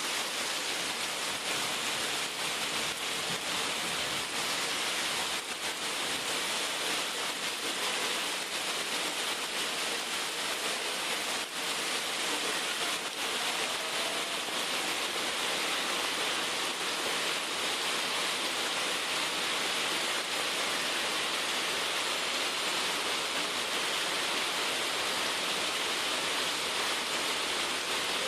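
Heavy rain falling steadily, a dense even hiss with a few faint taps of drops.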